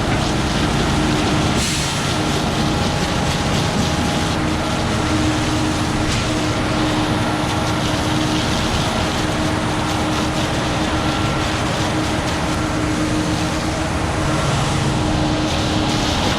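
Terex FD4000 front-discharge concrete mixer truck running steadily while parked, its engine wound up to keep the drum turning and mixing the load.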